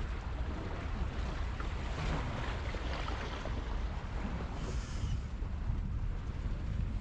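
Wind buffeting an action camera's microphone: a steady low rumble and rush, with the sea behind it.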